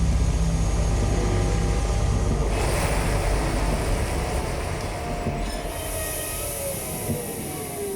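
Train sound effect: a heavy rumbling run, with a hiss joining about two and a half seconds in and squealing tones falling in pitch near the end.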